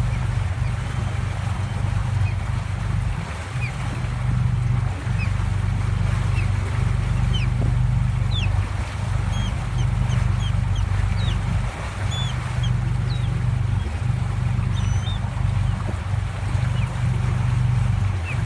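A boat's engine running with a steady low rumble, while birds give many short, high chirps, most of them through the middle stretch.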